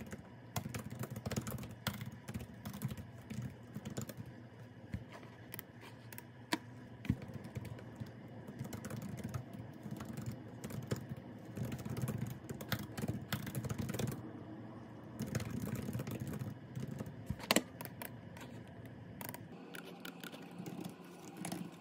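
Typing on a laptop keyboard: a steady run of quick, light key clicks with now and then a louder tap, over a low steady hum, slowing near the end.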